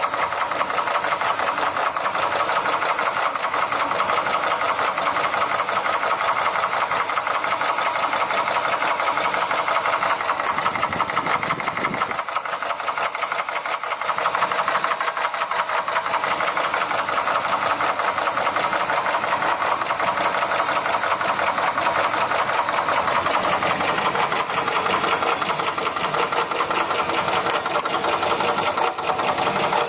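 1962 Chevrolet Impala engine running steadily with a fast, even ticking or knocking on top: the abnormal engine noise that is to be tracked down.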